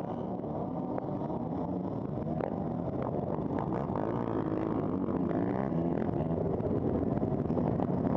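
A pack of motocross bikes accelerating hard away from the start, engines revving with pitch rising and falling through the gears. The rider's own bike and the one alongside are nearest and grow steadily louder.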